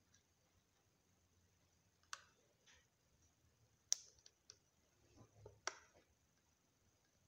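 Faint creaks and small clicks from a resin scale model of a Honda Civic Type R as a bare foot bears down on its roof: a handful of short ticks, the sharpest about four seconds in, with a cluster of quieter creaks soon after.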